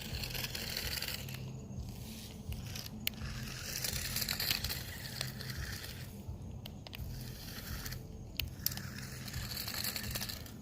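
Battery-powered remote-control toy car's small electric motor and gearbox whirring as its wheels run on carpet. It cuts out and restarts three times, with sharp clicks around the stops.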